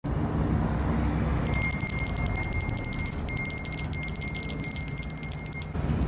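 Bell-ringing sound effect for a subscribe-and-notification-bell animation: a high, rapid ringing trill that starts about a second and a half in and stops abruptly near the end, over a low rumble.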